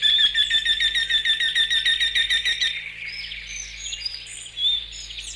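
Songbirds singing: one bird gives a fast run of repeated chirps, several a second, for the first three seconds or so, then scattered chirps and calls from other birds carry on.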